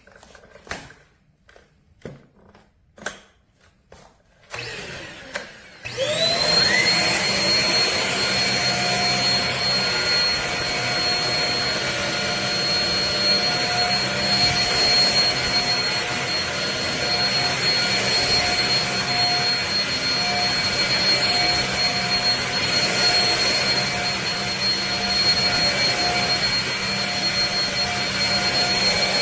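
A few short handling knocks, then about six seconds in a stick vacuum's motor switches on, winding up quickly to a high steady whine, and keeps running.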